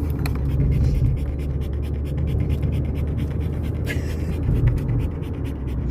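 Dog panting over the steady low rumble of a moving car's cabin.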